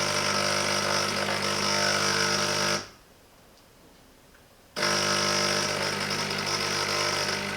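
Silvercrest SEM 1100 E1 espresso machine's vibration pump buzzing steadily while brewing a double espresso. It stops about 3 seconds in and starts again about 2 seconds later.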